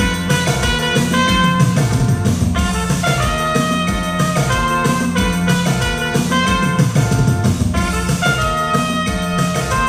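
Upbeat instrumental music with drum kit and guitar over a steady beat, an instrumental break with no singing.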